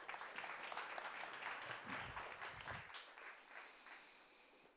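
Audience applauding a speaker onto the stage. The clapping is strongest over the first three seconds, then thins and fades away near the end.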